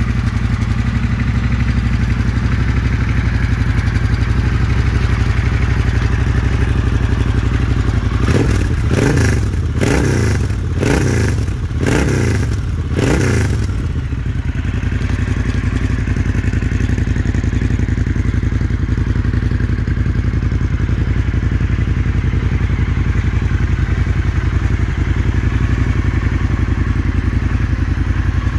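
Triumph Thruxton 1200's 1200 cc parallel-twin engine idling steadily. About eight seconds in, the throttle is blipped about five times in quick succession, each rev rising and falling, before the engine settles back to idle.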